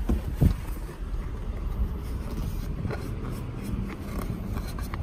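A vehicle engine running with a steady low rumble, with a knock about half a second in and light handling noise as a car seat's harness strap is fed through a slot in its plastic shell.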